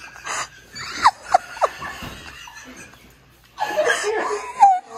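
People laughing: a few short, high squeals of laughter about a second in, then a louder, longer burst of laughter near the end.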